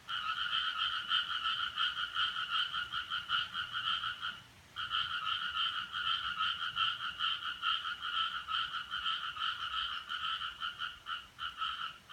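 A frog calling: one long, rapid pulsing trill, pitched fairly high, that breaks off once about four and a half seconds in, then resumes and stops right at the end.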